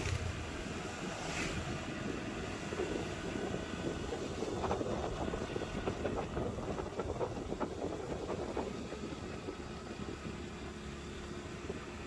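Motorcycle riding along a road, its engine running under wind noise on the microphone, with a run of light clicks and rattles from about four to nine seconds in.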